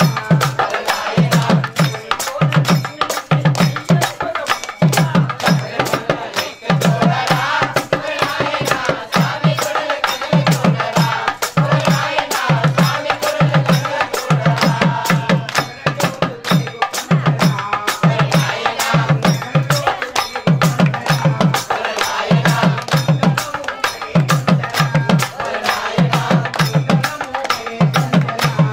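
Ayyappa devotional bhajan: a hand drum keeps a steady beat while small brass hand cymbals (talam) clash in time and voices sing along.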